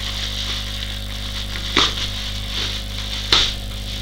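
Plastic courier bag rustling and crinkling as it is handled and opened, with two sharper crackles about two seconds and three and a half seconds in.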